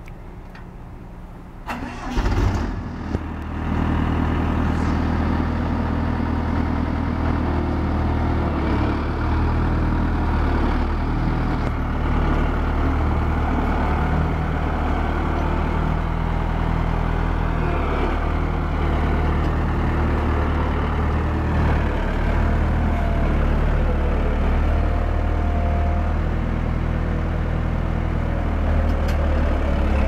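Ingersoll-Rand SD70D single-drum roller's engine cranking and catching about two seconds in, then running steadily.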